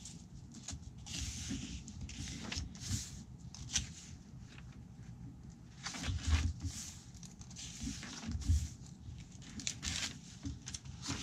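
Thick stitched paper pages of a handmade journal being turned and handled: irregular rustling and brushing of paper, with a couple of louder soft thumps about six and eight and a half seconds in as pages are flipped over.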